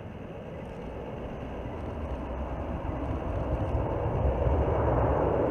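Jet noise from a Boeing C-17 Globemaster III's four Pratt & Whitney F117 turbofan engines as the aircraft touches down and rolls out on a snow runway. The rushing jet sound with a low rumble grows steadily louder throughout.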